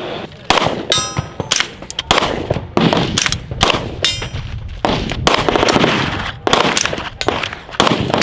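KRISS DMK-22 .22 LR AR-style rifle firing a steady string of single shots, about two a second. Some shots are followed by the ring of steel targets being hit.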